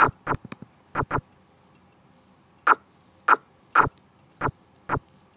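Computer keyboard keys clicking: single sharp keystrokes a half-second or so apart, a pair close together near the start and again about a second in.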